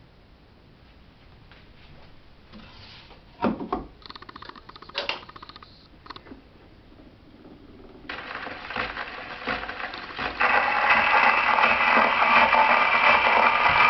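A few clicks and knocks, then from about eight seconds in the hiss and crackle of a needle running in the groove of a 1930 Syrena 78 rpm shellac record. About two and a half seconds later the tango recording comes in, with violin and accordion.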